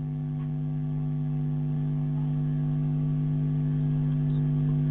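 Steady electrical mains hum, a low buzz with several steady overtones, growing slowly louder.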